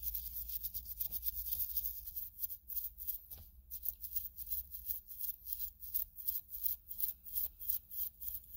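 A brush scrubbing a kerosene-wet cast-iron fishing reel part, the bristles swishing back and forth in quick strokes, about three a second.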